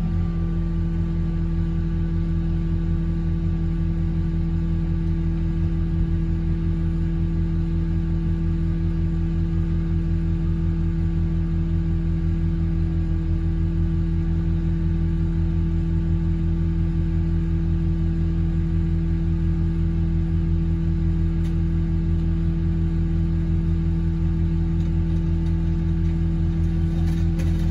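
Car crusher's engine running at a steady speed, a constant low drone that does not change.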